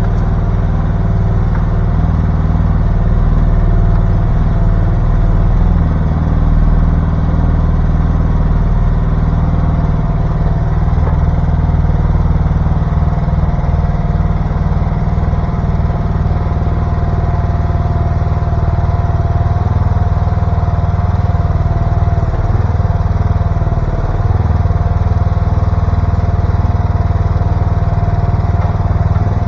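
Mini excavator's engine running steadily, a low hum with a thin, steady whine above it.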